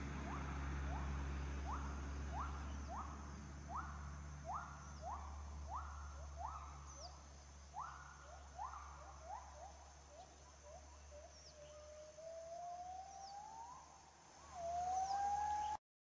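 A series of short rising whistled animal calls, about two a second, over a steady low hum. The calls quicken and shrink near the end and give way to a couple of longer rising whistles. The sound cuts off suddenly near the end.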